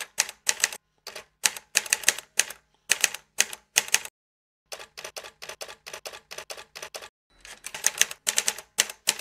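Typewriter keystroke sound effect: a quick, irregular run of key clacks that pauses for about half a second around four seconds in, then carries on.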